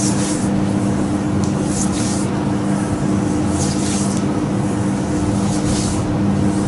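Hands stroking firmly over the bare skin of a back: a brief swish about every two seconds, over a steady low hum.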